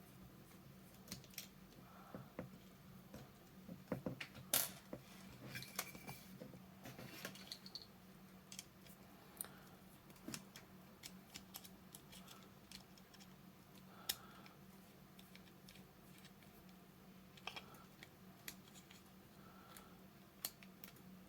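Faint, scattered clicks, taps and light scrapes of small plastic and metal parts as a model locomotive is taken apart by hand, its bogie frame being worked loose, over a faint steady low hum.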